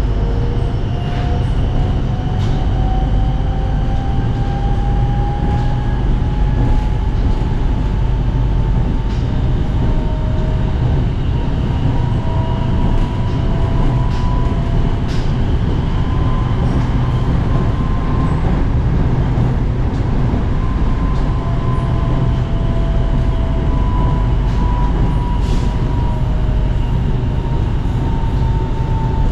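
Electric commuter train running on the SRT Red Line, heard from inside the passenger car: a steady rumble of wheels on track, with the motors' whine rising in pitch over the first several seconds and then holding. Light clicks come now and then.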